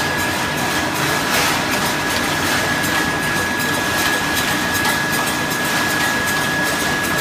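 Food-processing machinery running: a loud, steady mechanical noise with a constant high whine through it. The sound starts and stops abruptly, as in a cut-in clip of the machine's own sound.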